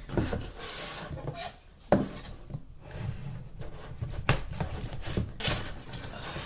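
Hands handling and opening a smartphone's retail box: rubbing and scraping with a few sharp clicks, the clearest about two seconds in.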